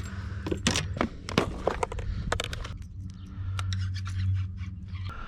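Fishing tackle being rummaged through: irregular clicks, ticks and scrapes of lures, plastic boxes and packets being handled.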